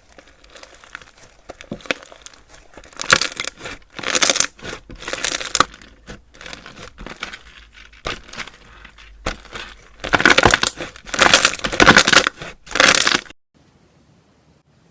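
Slime being worked by hand, giving crackling, crinkling noise in two louder spells, then cutting off abruptly near the end.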